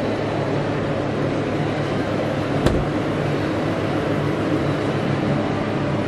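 Steady low hum and hiss of a large shop's background noise, with one sharp click about two and a half seconds in.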